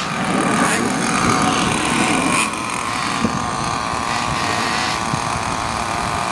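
Nitro-fuelled RC car's small two-stroke glow engine running, a high-pitched buzzing note that wavers up and down in pitch as the throttle changes.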